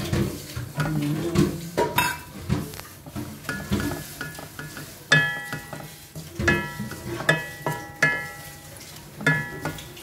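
Fried onions tipped from a steel bowl into hot oil in a wok and sautéed with a wooden spatula: light sizzling with scraping and stirring. From about halfway through come irregular sharp knocks of the spatula against the pan, several of which ring briefly.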